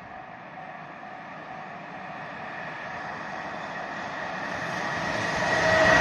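JR Freight EF210 electric locomotive hauling a container freight train, approaching and growing steadily louder, with two steady high tones over the running noise that strengthen near the end.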